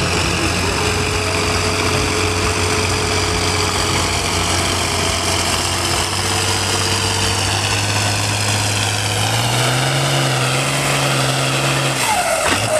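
Farm-stock diesel tractor pulling a weight-transfer sled under load, its engine running hard and steady with smoke from the stack. About three-quarters of the way through the engine note steps up in pitch, and near the end the steady note breaks off.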